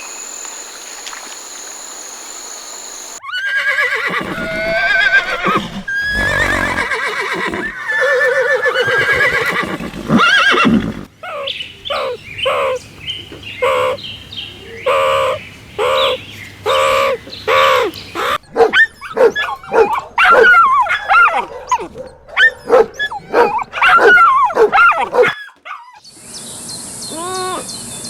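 Donkey braying: a long, loud run of repeated calls, each with a rising and falling pitch, coming about once a second in the second half. Insects chirr steadily for the first few seconds and again near the end.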